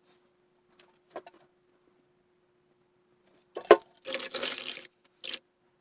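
Water splashing as a sponge soaked from the bottom of a toilet tank is squeezed out: a sharp clunk, then a splash lasting just under a second and a shorter one near the end.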